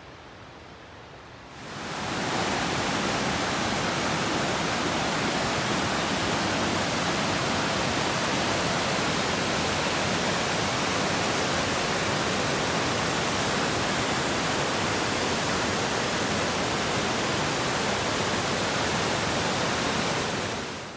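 Mountain creek water rushing steadily over cascades: an even, unbroken rush that fades in about two seconds in and cuts off at the end.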